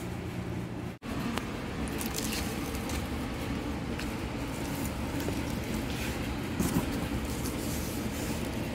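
Rustling and light knocks of a cardboard box's flaps being pushed open by hand, over a steady low room hum. The sound cuts out briefly about a second in.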